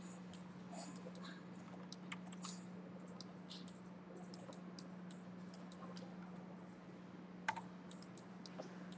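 Faint, irregular clicks and taps of a computer mouse and keyboard in use, with one louder click about seven and a half seconds in, over a steady low electrical hum.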